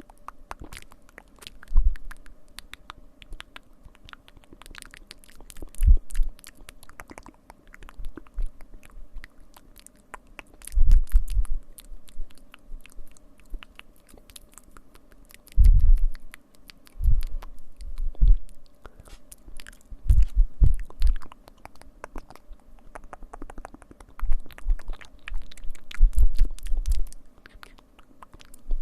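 ASMR scratching combined with mouth sounds: a stream of small crackly clicks, with bursts of muffled low rubbing every few seconds.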